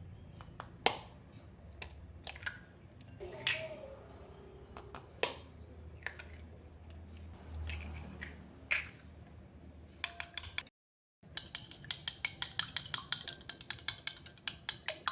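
Kitchen utensils clinking and knocking: scattered single clicks and clinks, then, after a short break, a quick steady run of knocks about five a second.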